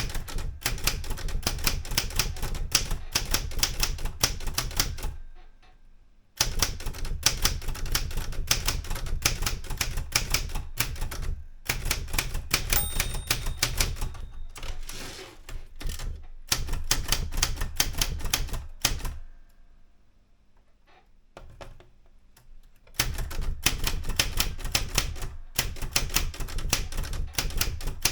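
Erika 105 manual typewriter being typed on: fast runs of keystrokes, type bars striking the platen, broken by several short pauses and one longer pause. About halfway through, a short ringing tone sounds, the margin bell.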